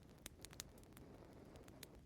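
Wood fire crackling: irregular sharp pops and ticks over a soft low rumble, with a few louder pops.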